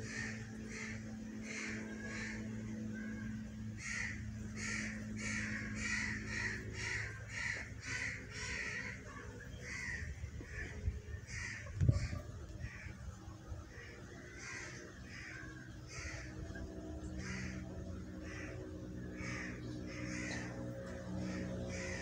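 Muscovy ducklings giving repeated distress peeps, about two calls a second, with no let-up. A single knock sounds about twelve seconds in, over a low steady hum.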